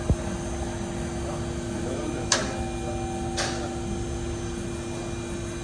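A steady machine hum, with a few sharp clicks.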